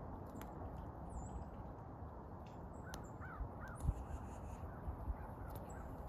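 A woodpecker pecking at a seed cake: a few soft low knocks, the loudest about four seconds in. Steady outdoor background noise, with a run of about four short distant bird calls near the middle and a few faint high chips.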